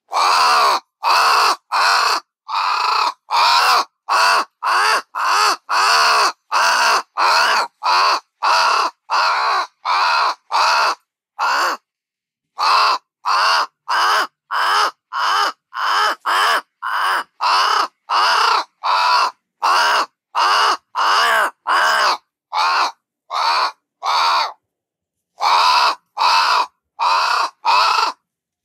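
Crow cawing over and over in a rapid, harsh series, about two caws a second, with two brief pauses.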